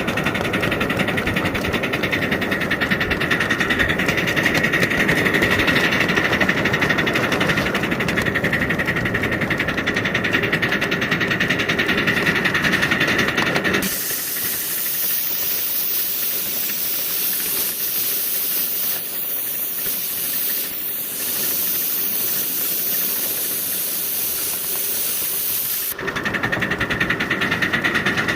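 A 5-inch gauge live steam locomotive: a steady mechanical running noise, broken about halfway through by a loud, high steam hiss that starts suddenly, lasts about twelve seconds and cuts off just as suddenly, after which the running noise returns.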